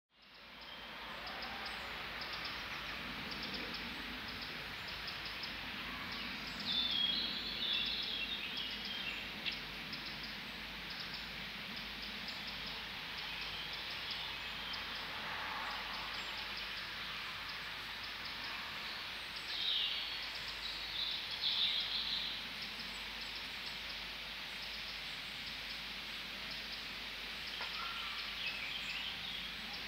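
Forest ambience: a steady hiss with short bursts of bird song breaking in several times. The sound fades in at the start.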